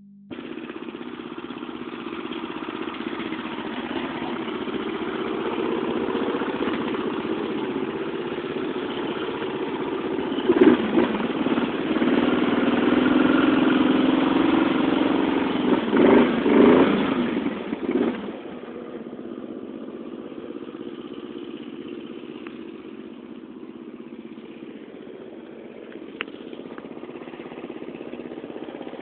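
Lawn mower engine running while being driven through mud, growing louder with uneven surges of revving. It then drops suddenly to a quieter steady run.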